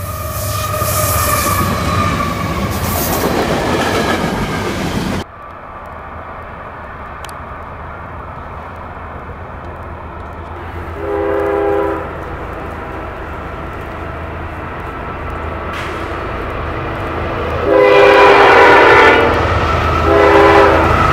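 CSX freight train passing close by with its locomotive horn sounding, then, after a cut, a distant approaching CSX freight locomotive sounding its multi-tone horn: a short blast about halfway through, then a long blast and a short one near the end, over a low rumble of the train.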